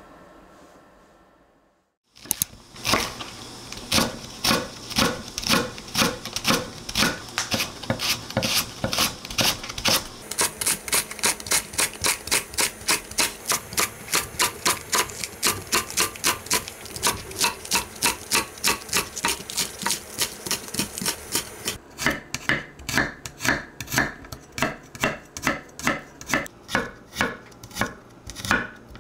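Santoku knife chopping on a wooden cutting board: steady strokes slicing a Japanese long green onion, then mincing garlic. The strokes start about two seconds in at roughly two a second, quicken in the middle, and grow sparser near the end.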